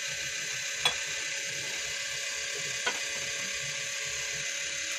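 Pork stew simmering under a glass lid in a non-stick pan, a steady sizzling hiss, with two light clicks about one second and three seconds in.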